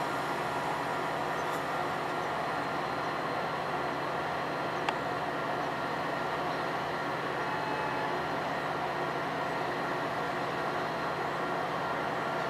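Steady mechanical hum of a bilevel commuter train standing at the platform, with several steady tones under a constant noise. One sharp click comes about five seconds in.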